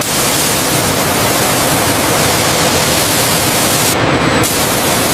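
Loud, steady hissing rush of noise that starts abruptly, its highest part dropping out briefly about four seconds in.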